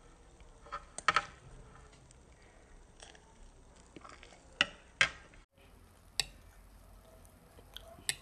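Cutlery clinking against a dish: several short, sharp clinks at irregular intervals, a quick double about a second in and single ones later.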